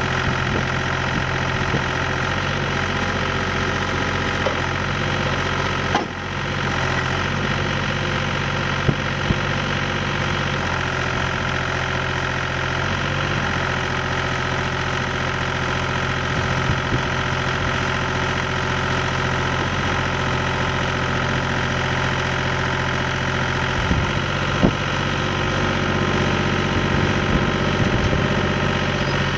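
Vermeer LM42 mini skid steer's engine running steadily, with a few sharp clanks along the way.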